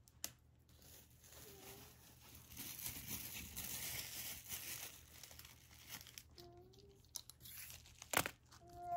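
Paper crinkling and rustling off-camera, heaviest for a couple of seconds in the middle, with a sharp click near the end.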